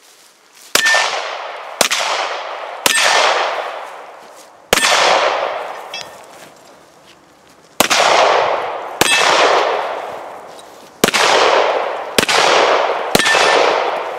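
Nine pistol shots, fired in strings of one to three about a second apart with longer pauses between strings, each trailing off in a long fading echo.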